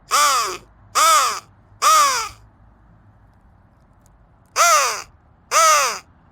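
Flextone Lightning Crow call blown in loud caws: three about a second apart, a pause of about two seconds, then two more. Each caw is a harsh note that arches up and then down in pitch.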